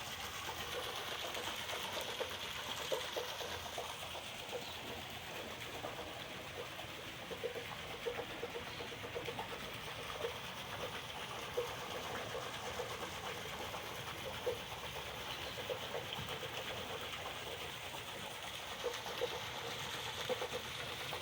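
Steady bubbling water of an aquarium or fountain, with small irregular pops.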